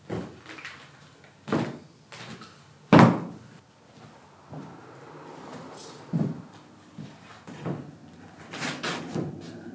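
Slow, heavy footsteps: spacesuit boots clunking on a metal ship's hull, one heavy thud about every second and a half, coming closer together near the end.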